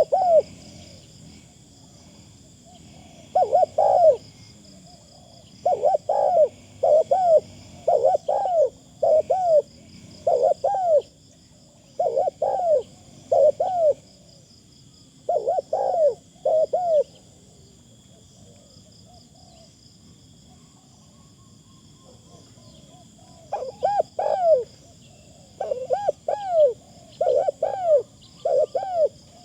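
Spotted dove cooing: short hooting coos repeated in quick groups of two or three, falling silent for several seconds about two-thirds of the way through before starting again. A steady faint high-pitched drone runs underneath.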